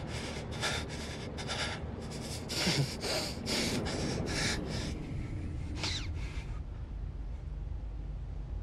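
A distressed young man breathing hard in quick, ragged gasps, about two to three breaths a second. The breathing stops at about 6.7 s and a steady low rumble remains.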